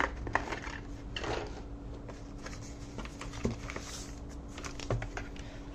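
Keyboard packaging being handled as the keyboard is taken out of its box: scattered light knocks and clicks with a couple of brief rustles.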